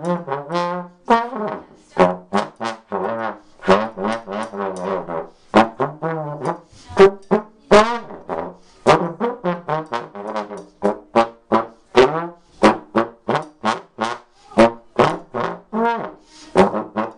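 Slide trombone playing a solo of short, detached notes in quick succession, some bending in pitch.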